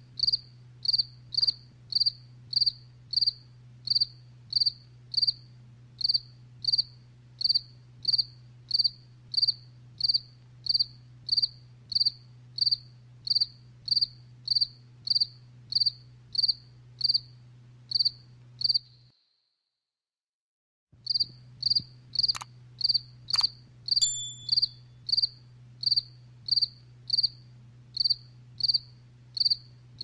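A cricket chirping: a steady series of short, high chirps, two or three a second, breaking off for about two seconds past the middle and then resuming. Two sharp clicks come shortly after it resumes, and a low steady hum runs underneath.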